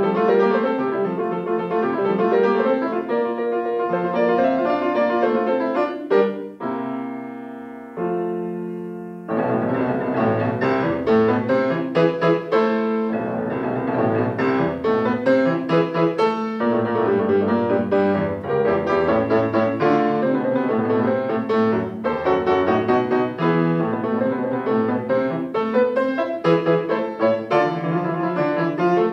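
Grand piano played solo in a classical piece: a run of quick notes, then two chords about six and eight seconds in, each held and left to ring down, before fast, dense playing starts again and runs on.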